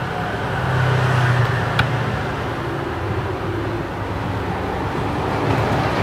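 Steady low hum of road traffic that swells about a second in and then eases. A single small click comes near two seconds in.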